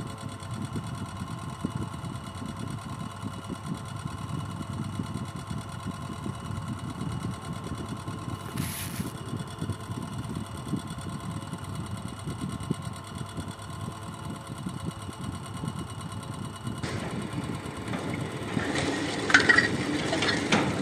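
A motor or engine running steadily, a low rumble under a constant hum. It grows louder and busier with some sharp clatters in the last few seconds.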